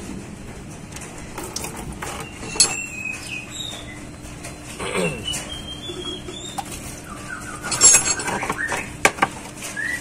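Metal clicks, knocks and scrapes from a disc brake caliper being handled as its rusty piston is worked out by hand. There are a few short squeaks, and one sharp knock is loudest near the end.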